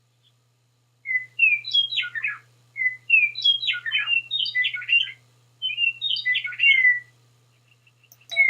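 Recorded bird song played by the electronic sound module of a decorative birdhouse ornament: three similar chirping phrases in a row over a faint steady low hum from the unit. A few clicks and the start of another phrase come near the end.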